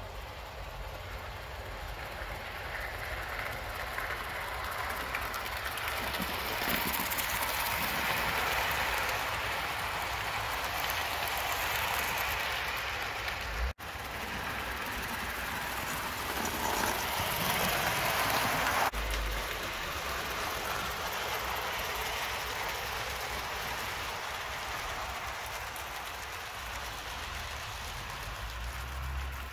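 Hornby OO gauge live steam model locomotive running on garden track: a steady hissing noise that grows louder through the middle and eases off toward the end, breaking off abruptly twice.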